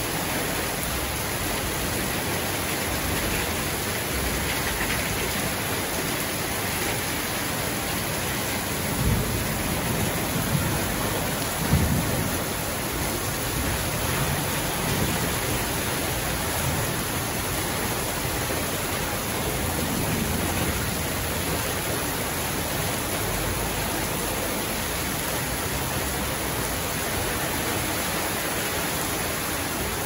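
Heavy rain pouring down in a storm, a steady dense hiss, with a few brief low rumbles about nine to twelve seconds in.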